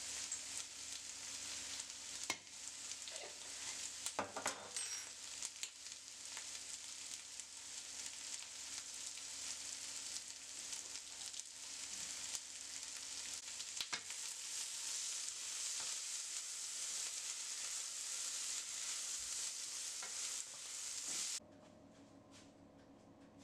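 Green beans sizzling in a frying pan, a steady hiss with scattered clicks. It cuts off suddenly near the end, leaving only faint room tone.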